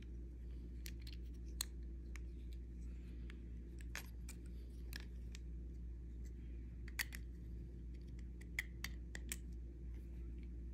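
Small plastic clicks and taps from a Toyota Camry cruise control stalk being handled and fitted back together, scattered and irregular, with sharper clicks about one and a half, seven and eight and a half seconds in. A steady low hum runs underneath.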